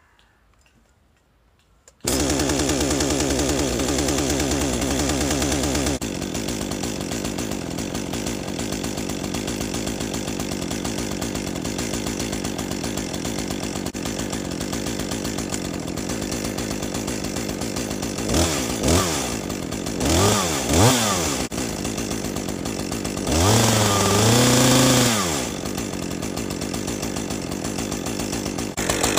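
A Stihl MS 201 C two-stroke chainsaw engine catches about two seconds in and runs louder for a few seconds, then drops to a steady idle. Later the throttle is blipped four times in quick succession, then held open for about two seconds before the engine settles back to idle.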